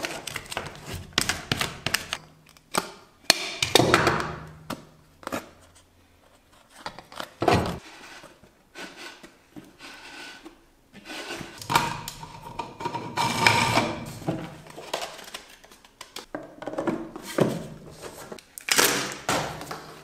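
Duct tape pulled off the roll and pressed onto a cracked plastic food-container box, in several noisy stretches of about a second each. Between them come many clicks and knocks of the plastic box and parts being handled on the bench.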